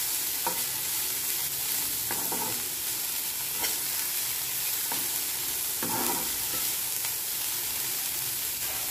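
Chopped onion, garlic, ginger and green chillies sizzling in hot oil in a non-stick frying pan, stirred with a metal spoon that scrapes and taps the pan every second or so.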